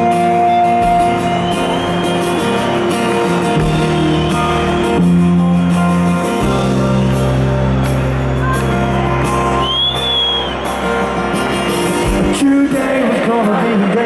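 Live rock band playing an instrumental passage of held chords over changing bass notes, with guitars and a high bending note about two thirds of the way in. A man's voice starts singing near the end.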